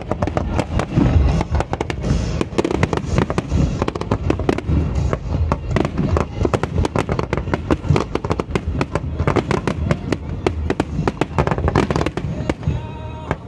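Fireworks display: a dense, rapid barrage of aerial shells bursting, with bangs and crackling following one another almost without pause.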